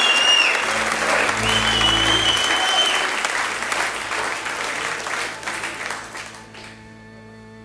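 Concert audience applauding and cheering, with several shrill whistles, the applause dying away about six or seven seconds in. A steady held note from the stage's instruments is left ringing.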